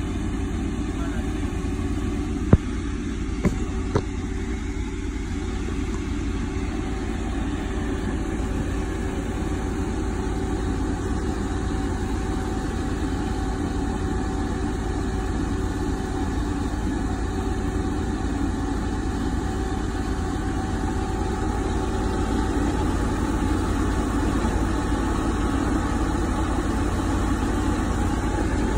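Engine running steadily, a continuous mechanical drone, with three sharp knocks between about two and four seconds in.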